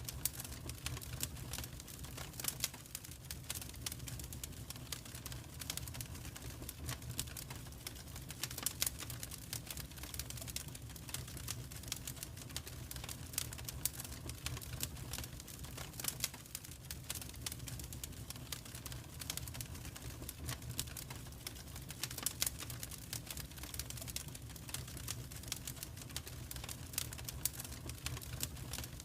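Wood fire crackling in a fireplace: dense, irregular sharp pops and snaps over a steady low rumble.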